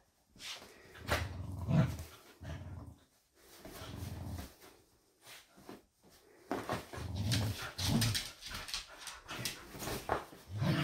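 Two corgis growling and grunting in play in short low bursts while they tug and dig at a blanket, with scratching and rustling of the fabric and the dog bed.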